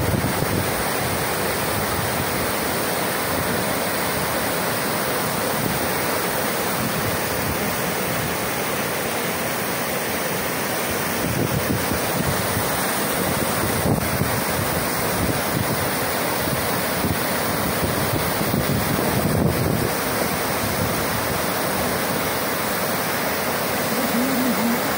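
Several small waterfalls pouring over a rock ledge into a shallow pool: a steady rush of falling and splashing water.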